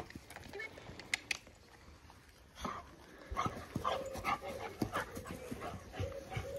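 Labrador whining: one long, thin, steady whine that starts about four seconds in and carries on. A run of short, quick sounds of the dogs moving about comes just before it, from about two and a half seconds in.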